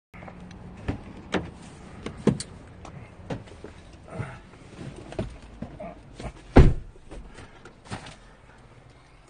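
Handling noise from a handheld phone being carried and jostled: a string of irregular knocks and rubs, with one heavy thump about six and a half seconds in.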